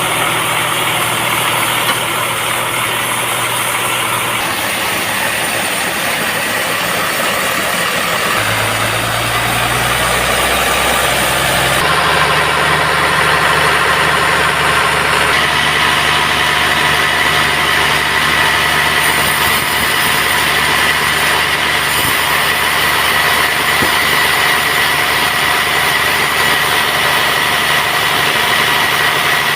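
Band sawmill machinery running with a steady engine-like drone. Its low hum shifts pitch about 8 and 12 seconds in, and a steady high whine joins about halfway through.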